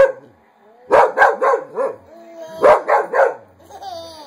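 A baby laughing in quick runs of short bursts, a penguin-like laugh, about a second in and again near three seconds in.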